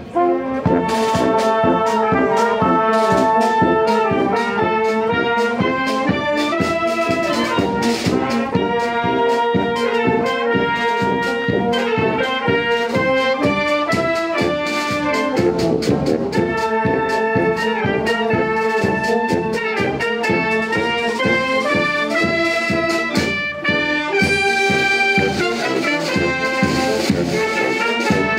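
Brass band playing a melodic tune with trumpets and trombones over a steady beat, with a short break about 23 seconds in.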